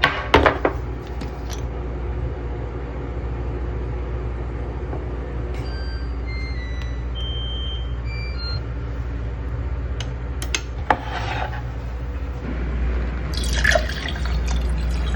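Tableware being handled: a few sharp clicks, then a run of short, clear ringing clinks at different pitches, over a steady low hum.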